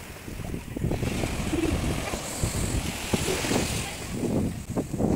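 Sea wind buffeting the phone's microphone in gusts, over surf washing in on the beach.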